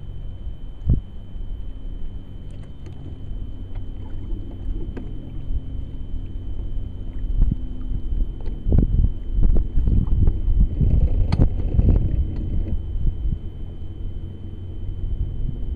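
Knocks and thumps on a bass boat's deck over a steady low rumble, with a faint steady high whine throughout. There is one sharp knock about a second in, and a dense cluster of thumps between about eight and thirteen seconds in.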